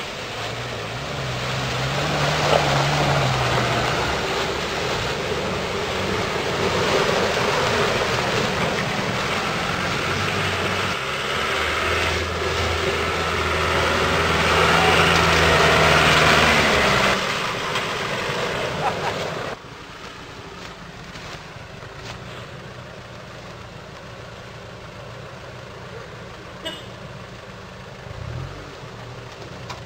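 Land Rover Defender 90 Td4's four-cylinder turbodiesel engine working off-road, its pitch rising and falling, under a heavy rushing noise. About twenty seconds in the rushing stops abruptly, leaving the engine running much more quietly.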